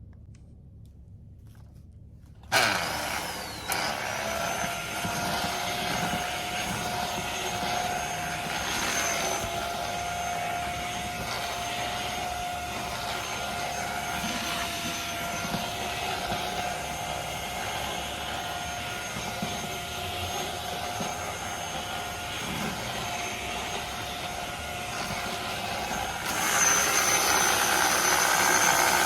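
Corded handheld mattress vacuum switched on about two and a half seconds in, spinning up and then running with a steady whine while it is worked over a mattress. Near the end it gets noticeably louder and rougher.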